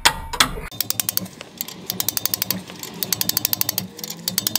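Two hammer blows on a spanner right at the start break the rusted nut free on a Suzuki Jimny trailing-arm bolt. A ratchet spanner then clicks rapidly, about ten clicks a second, in several bursts with short pauses as the loosened nut is wound off.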